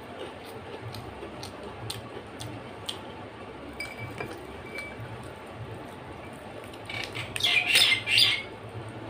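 Fried papad (papadum) being crumbled by hand over a plate of rice and dal, a loud crisp crackling for about a second and a half near the end. Before it come faint clicks and rustles of fingers mixing rice.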